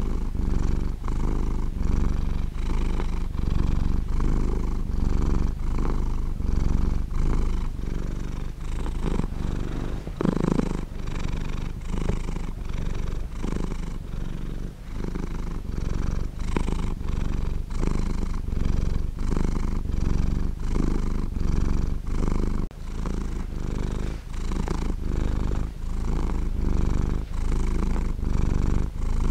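Domestic cat purring steadily, a low rumble that pulses in an even rhythm with each in and out breath.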